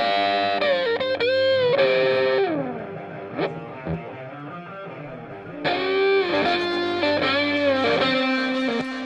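Background music: electric guitar played with distortion and effects, with bent and sliding notes in two phrases separated by a quieter gap.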